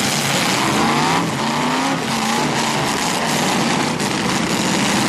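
Several demolition derby car engines running and revving hard, with a few rising whines over a dense, steady, loud noise.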